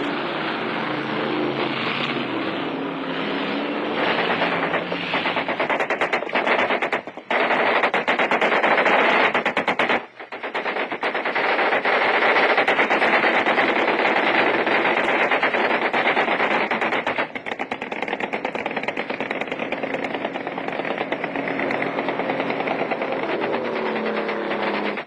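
A river patrol boat's engines running at speed, then sustained machine-gun fire from about five seconds in: long rapid bursts with a few short breaks. The engine drone comes up again under the firing near the end.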